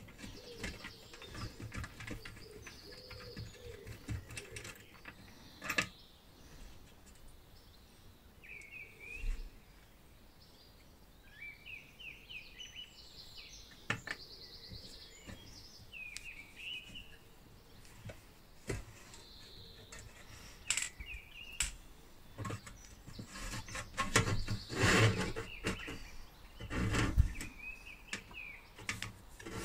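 Scattered clicks and taps of small parts and hand tools worked on a steel battery-charger case, with a denser run of handling noise near the end. Small birds chirp now and then in the background.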